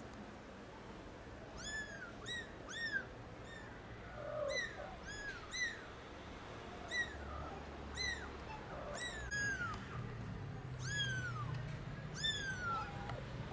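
Young kittens mewing over and over: about a dozen short, high-pitched meows starting a couple of seconds in, the later ones drawn out and falling in pitch.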